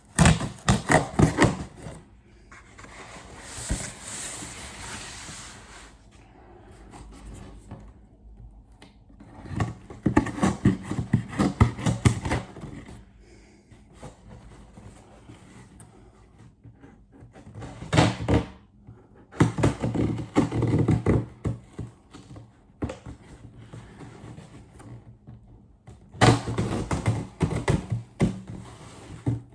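Cardboard parcel being opened and unpacked by hand: crinkling, scraping and knocks of cardboard and packaging in several bursts, with quieter pauses between them.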